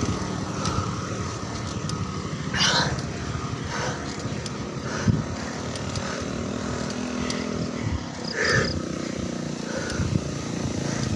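Small motorcycle engine running nearby on a steep road, over rough wind and road noise, with two brief louder swells about a third of the way in and again near the end.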